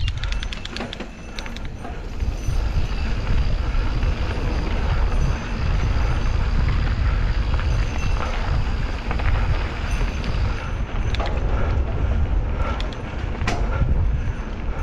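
Mountain bike riding a dirt singletrack trail: a steady rumble of wind and tyres at the camera microphone, with sharp rattling clicks from the bike over bumps near the start and again toward the end.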